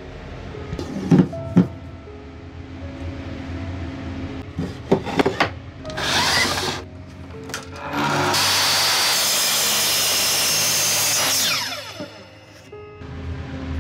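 A few wooden knocks, then a power miter saw runs and cuts through a block of dark hardwood for about three and a half seconds. Near the end its blade spins down with a falling whine.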